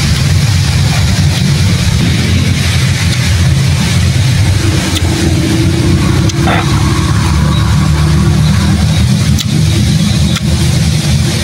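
A loud, steady low engine hum, like a motor running nearby, that runs without break.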